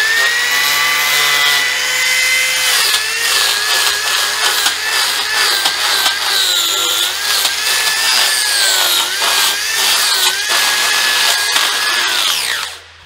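High-speed power carving tool whining as it cuts into a block of tamarind wood. Its pitch sags and wavers under load from about three seconds in, and near the end it spins down and stops.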